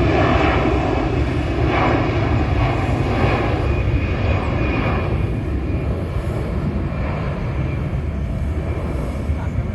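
Airbus A321 jet airliner's engines at takeoff power, a loud steady roar with a deep rumble. It gradually fades, the higher hiss dropping away about halfway through, as the aircraft climbs away.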